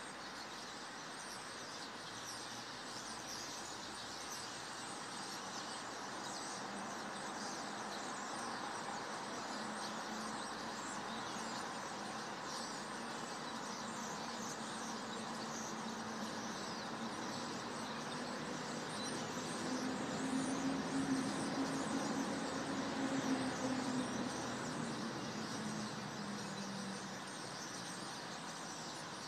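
Outdoor ambience: small birds chirp throughout over a steady background rush. A vehicle's engine hum builds through the middle, is loudest about two-thirds of the way in, and fades away near the end.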